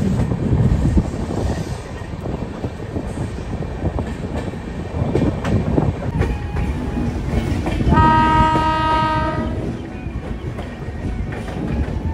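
Express passenger train running through a station yard, its wheels rumbling and clattering over the tracks. A train horn sounds once, about eight seconds in, held for about a second and a half.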